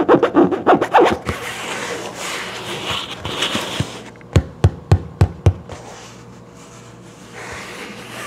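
Fingertip scratching and rubbing across the cone of a 12-inch woofer, a rough hiss of skin on the stiff cone material. Then about six quick taps on the cone, each with a low thud from the speaker, a little over four seconds in.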